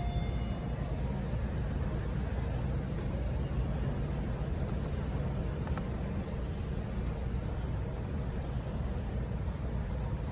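Steady low hum of background noise, with a couple of faint small clicks.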